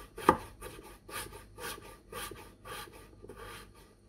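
Kitchen knife slicing a peeled potato into thin pieces on a wooden cutting board: the blade knocks on the board at a steady pace of about two strokes a second, the first stroke the loudest.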